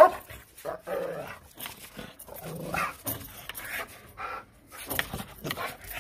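Mixed-breed female guard dog barking in a series of short, sharp barks, the loudest right at the start.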